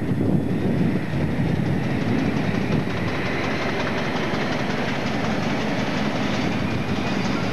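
British Rail Class 56 diesel-electric locomotive, with its Ruston-Paxman V16 diesel engine, running past slowly at the head of a train of MGR coal hoppers. Engine noise is mixed with the clatter of wheels over rail joints, and a hiss swells in the middle of the pass.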